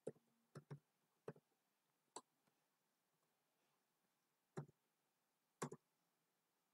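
Faint, scattered clicks of a computer keyboard and mouse, about eight in all, with a gap of about two seconds in the middle.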